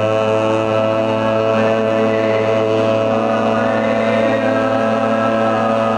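A man's voice and a group chanting the syllable "ya" together as one long, unbroken note at a steady low pitch, over background music.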